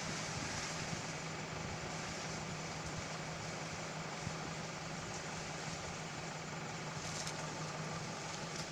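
Steady low mechanical hum over an even background hiss, like a motor or engine running without change.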